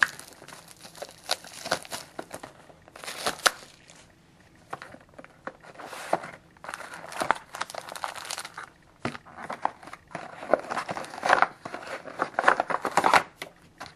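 Plastic wrapping crinkling and tearing in irregular bursts as a sealed trading-card box is unwrapped and opened by hand.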